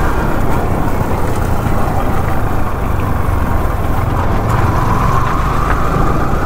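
Yamaha R15 V3 motorcycle on the move: engine running under steady wind rush on the rider's microphone, with a faint whine rising slightly in pitch over the last two seconds.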